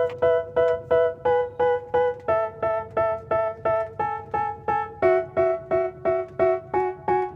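Background music: a keyboard plays a repeated chord about three times a second, with the chord changing twice. It is the intro of a rap song before the beat comes in.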